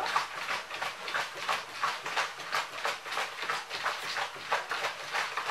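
Wooden spoon beating cake batter in a plastic mixing basin: a steady run of wet slapping and scraping strokes, about three a second.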